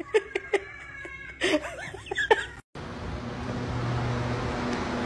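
Short high-pitched cries and clicks from a woman who has just been scared, her face covered. After a sudden cut about two and a half seconds in, there is a steady low hum and hiss of parking-garage room noise.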